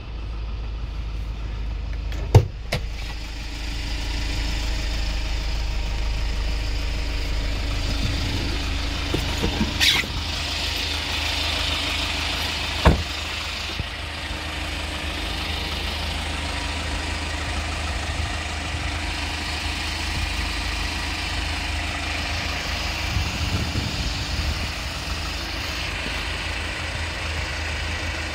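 Kia Bongo III 1.2-ton truck's engine idling steadily, with a few sharp knocks, the loudest about two and a half seconds in.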